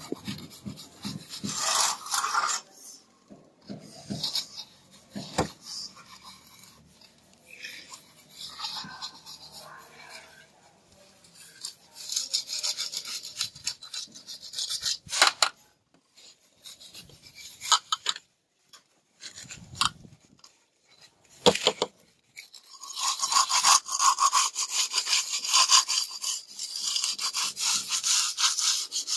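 A hand tool scraping and rubbing over a rough building surface in quick back-and-forth strokes, in several runs. Between the runs are quieter spells with a few sharp knocks.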